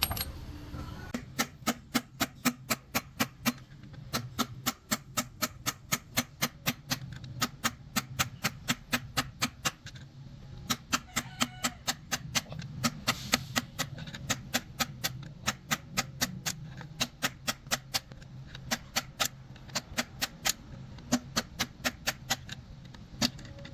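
Rapid, regular sharp taps on metal, about three or four a second in runs broken by short pauses, typical of hand-hammer work on truck gearbox parts, over a faint steady low hum.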